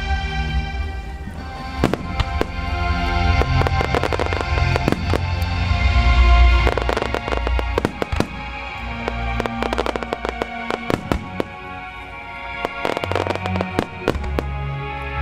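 Aerial fireworks shells bursting in many quick reports and crackles, with deep booms, over recorded music that accompanies a creative fireworks display choreographed to music.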